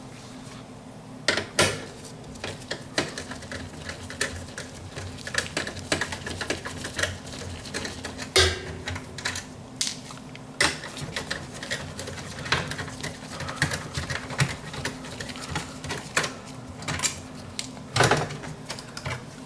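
Irregular clicking, tapping and clattering of small parts and hand tools being handled during appliance installation work, with a few louder knocks, over a faint steady hum.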